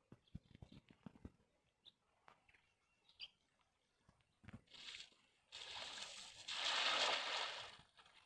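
Cast net (tarraya) being handled and thrown into shallow water: light drips and ticks as the wet net is gathered, then a spattering splash lasting a couple of seconds as the weighted net lands and sinks, loudest near the end.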